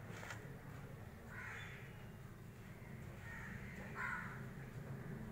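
Crows cawing: a few separate caws a second or two apart, the loudest about four seconds in, over a steady low hum.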